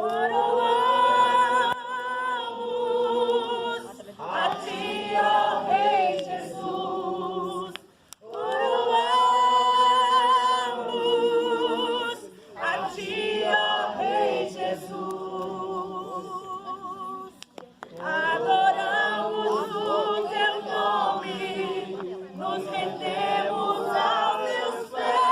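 A small congregation singing a worship song a cappella, in long sustained phrases broken by short pauses for breath.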